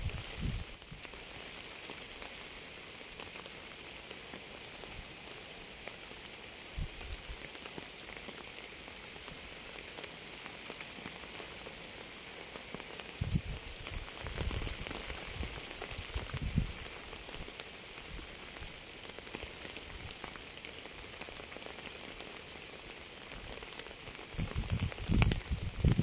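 Steady rain falling, an even hiss, with a few short low rumbles around the middle and a louder low rumble building near the end.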